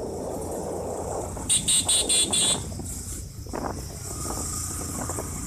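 Motorcycle riding along with wind buffeting the phone's microphone. About a second and a half in, a rapid run of high-pitched pulses lasts about a second.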